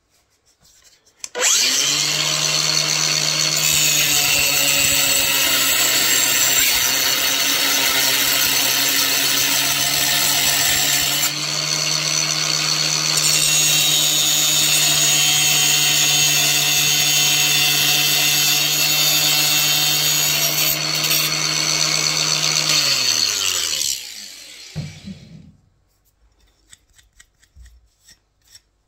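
Electric power cutter running while cutting a ceramic wall tile to shape. The motor starts about a second in, runs steadily for some twenty seconds with a brief dip halfway through, then winds down with falling pitch near the end.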